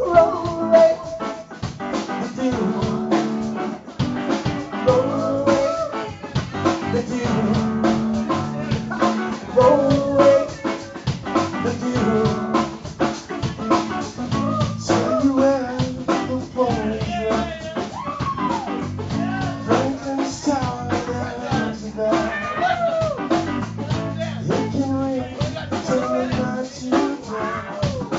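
Live band playing: a singer's voice over guitar and drum kit.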